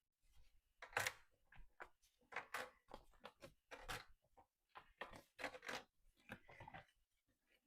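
Cured epoxy resin jigsaw pieces being handled and tried together: a string of faint, irregular clicks and scrapes.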